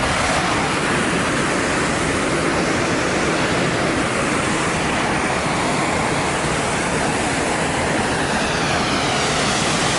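Waterfall heard up close: a steady, loud rush of falling water that holds even throughout.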